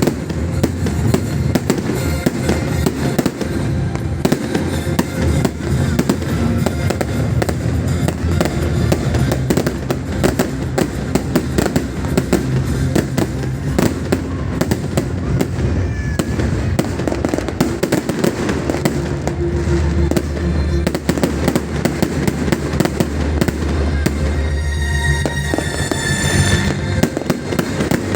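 Many fireworks going off at once: a dense, continuous crackle of bangs and firecracker pops over a low rumble, with a whistling tone about twenty-five seconds in.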